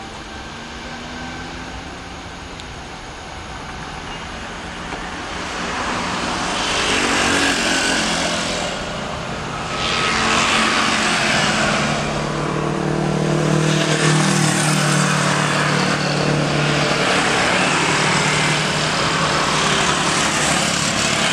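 Jet engines of a Korean Air twin-engine wide-body airliner spooling up to takeoff thrust and rolling down the runway. The roar builds over the first several seconds, then stays loud with a low steady hum under a rushing noise that swells and dips as the jet passes.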